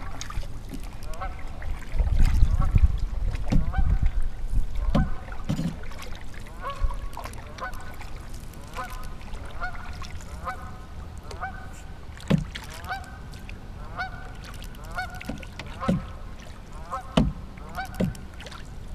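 A flock of geese honking over and over in quick, overlapping calls as the flock takes off. A loud low rush of noise comes between about two and five seconds in, and a few dull knocks come near the end.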